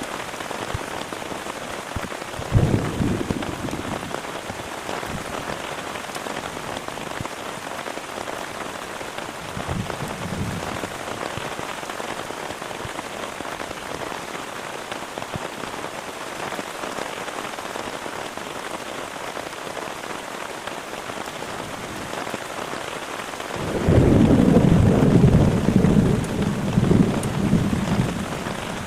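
Heavy rain falling steadily, with thunder: a sharp clap and rumble about two and a half seconds in, a softer rumble around ten seconds, and a long, loud rolling rumble near the end.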